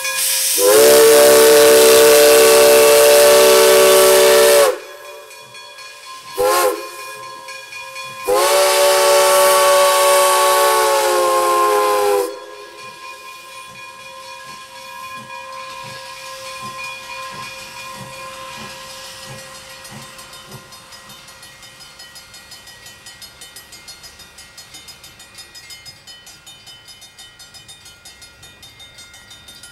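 Steam locomotive #98, a 4-4-0, hisses as it releases steam. Its whistle then sounds a long blast, a short one and another long blast. The sound then drops to a fainter rumble as the engine pulls away, with a faint regular beat near the end.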